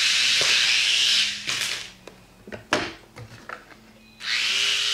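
Picoo Z micro helicopter's small electric motor whining, spinning down about a second in. A few light clicks and knocks follow on the wooden floor, then the motor starts again sharply at about four seconds.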